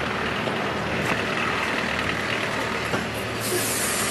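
Steady street background noise; about three and a half seconds in, an aerosol spray-paint can starts hissing as red paint is sprayed onto the wall.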